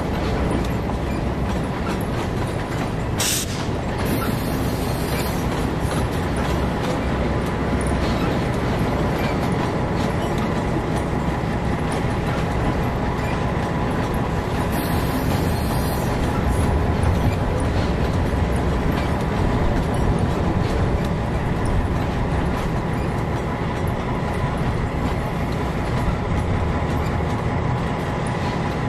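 Diesel-hauled train running on the rails: a steady engine rumble mixed with wheel and rail noise, with one sharp knock about three seconds in.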